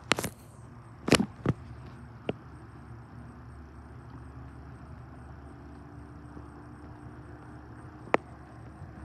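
A few sharp knocks and clicks over a steady low outdoor rumble of wind and water: four in the first two and a half seconds, one near the end. A faint steady hum sets in about halfway through.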